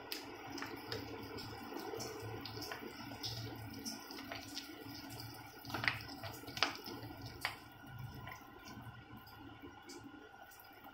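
A spoon stirring thick semolina and milk batter in a glass bowl: soft wet squelching with scattered light clicks of the spoon against the glass, a few sharper ones about six to seven and a half seconds in, over a faint steady hum.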